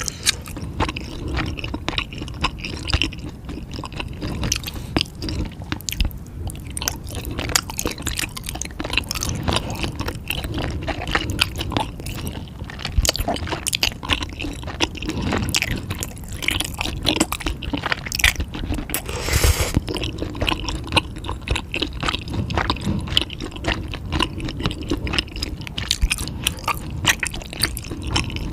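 Close-miked chewing: continuous wet, squishy mouth sounds with many small crunchy clicks as food is bitten and chewed.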